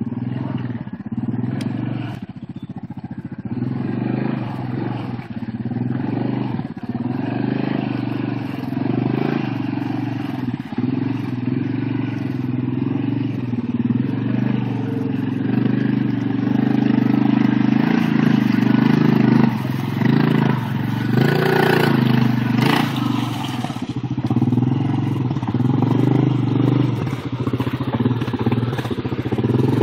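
Yamaha ATV engine running at low revs as the four-wheeler wades through a muddy puddle, with water sloshing around the tyres. The engine gets louder toward the middle, with brief surges of splashing a little past the two-thirds mark.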